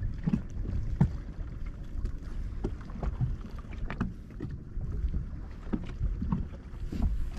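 Small waves lapping and slapping against a fishing boat's hull in irregular little knocks, over a low wind rumble on the microphone.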